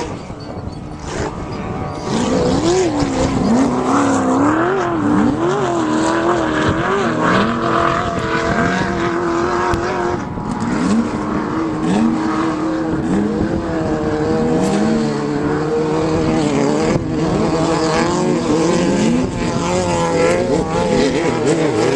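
Off-road race truck's engine revving hard, its pitch climbing and falling again and again as it accelerates and lifts off, with sharp drops like gear changes. It comes up loud about two seconds in, over a steady rush of noise.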